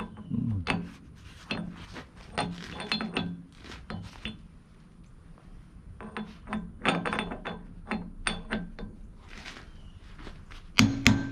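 Steel bullet teeth and the auger pilot bit being handled, with irregular metal clinks and knocks. Near the end a hammer starts striking the steel in quick, even blows that ring.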